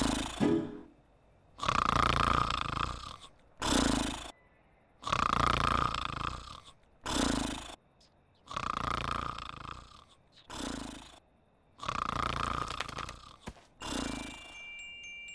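Sleeping sheep snoring loudly in a steady rhythm: each long rasping snore is followed by a shorter one, and the pair repeats about every three and a half seconds, four times over.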